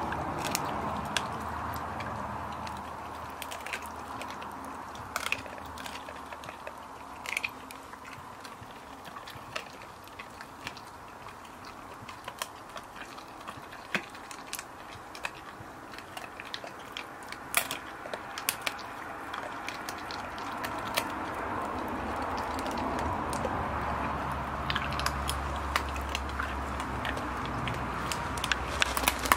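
A Dalmatian chewing a piece of barbecued meat, with irregular wet crunches and clicks as it bites. A low rumble builds in the last few seconds.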